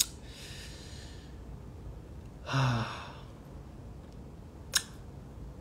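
A man breathing out, then a short voiced sigh about two and a half seconds in. Two sharp clicks, one at the start and one near the end.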